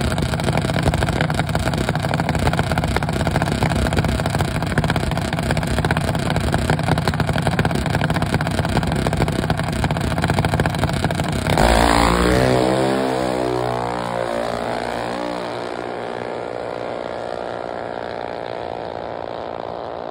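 Junior dragster's single-cylinder engine running steadily at the starting line, then launching a little past halfway: it revs up hard with a rising pitch as the car accelerates away down the drag strip, fading steadily as it pulls into the distance.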